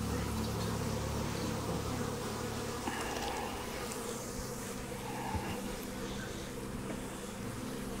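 Many honeybees buzzing together in a steady hum, a colony stirred up as its cluster is scooped up and tipped into a new hive box. A single light knock comes a little past the midpoint.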